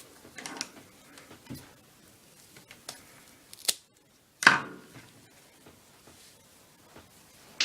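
Scissors cutting a length of twine, amid light rustling as the twine is handled: scattered soft clicks, then a sharp snip about three and a half seconds in and a louder one about a second later.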